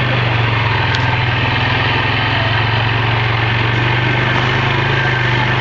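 ATV (quad) engine running steadily while riding, a loud, even engine hum with no change in pitch.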